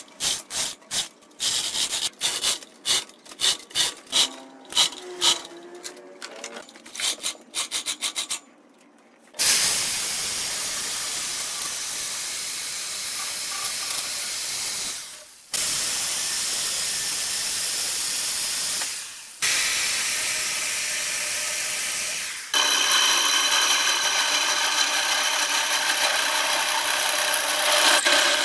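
Metal chain links clinking and clanking for several seconds. Then a cordless reciprocating saw cuts steadily through wood in three long stretches, each stopping suddenly. Near the end a large wooden workpiece spins on the lathe with a tool cutting it, a steady rasping with a faint steady hum.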